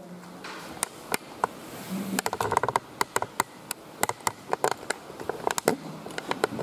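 Scattered sharp clicks and taps of computer mice and keyboards, several a second and irregular, with a brief low murmur of voices about two and a half seconds in.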